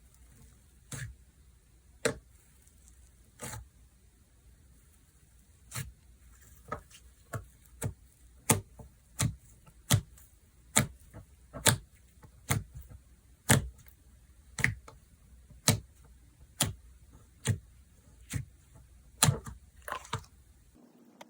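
Slime being pressed and poked in the hands, giving a long series of sharp clicking pops. They come about once a second at first, then quicken to roughly three every two seconds.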